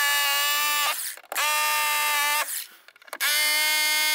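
Bosch hammer drill, set on hammer with a 6 mm masonry bit, drilling out rivets in three bursts of about a second each. Each burst is a high whine that rises as the drill spins up and drops as it stops. The audio is fast-forwarded.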